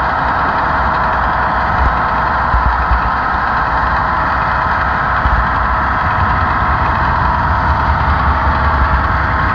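HO-scale model train running, heard from a camera riding on the flatcar it pushes: a steady rolling rumble of wheels on rail and drive hum, with irregular low thumps as the flatcar jostles.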